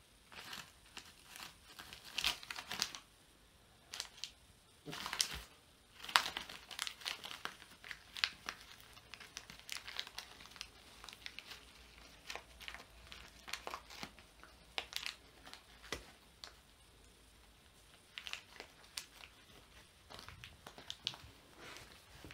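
West Highland white terrier tearing and crumpling paper scraps: irregular crinkling and ripping sounds that come and go in short bunches.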